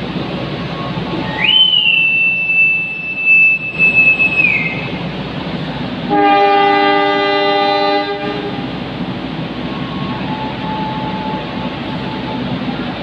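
A railway crewman's whistle gives one long shrill blast of about three seconds, ending in a few short toots. About a second and a half later a locomotive horn answers with one steady blast of about two seconds, over the constant hum of trains idling at the platform.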